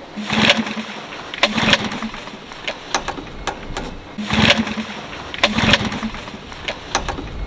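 Small dinghy outboard engine being pull-started: several hard yanks on the recoil starter cord with sputtering bursts, then the engine catches and keeps running near the end.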